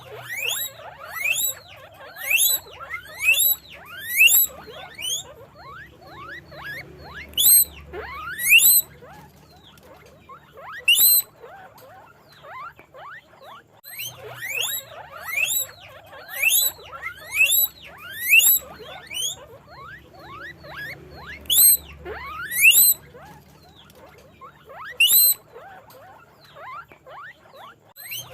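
Guinea pig squeaking (wheeking): a run of high, loud squeaks, each sweeping sharply upward in pitch. They come about one or two a second in bouts, with short pauses between.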